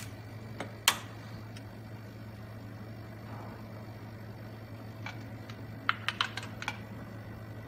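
Small clicks and taps of gloved hands handling a compression tester's hose and fittings on an engine during a compression test. There is a sharp click about a second in and a quick run of clicks around six seconds, over a steady low hum.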